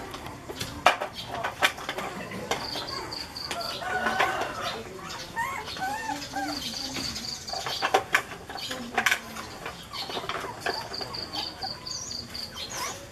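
Chickens clucking, with short rising and falling calls. A high pulsed trill comes and goes three times, and a few sharp clicks stand out above the rest.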